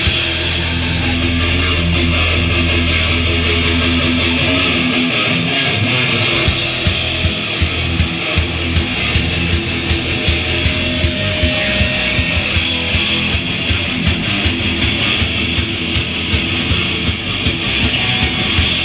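Rock band playing live with electric guitar, bass and drums. A low note is held for about the first five seconds, then the drums pound out a steady beat under the guitars.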